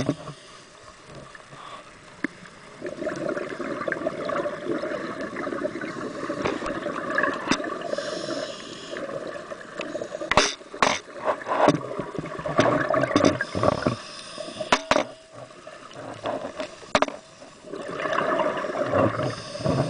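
Scuba diver breathing through a regulator underwater: long bursts of bubbling exhaust on the exhale and a hissing draw on the inhale, with a few sharp clicks in the middle.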